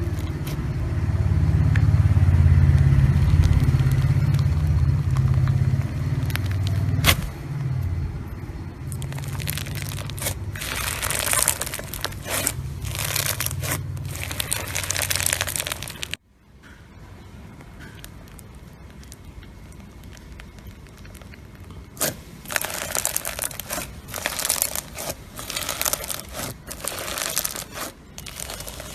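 Slime being squeezed and pressed by hand, crackling and popping in quick clusters. A deep rumble runs under the first part, and the clip changes to a quieter one about halfway through.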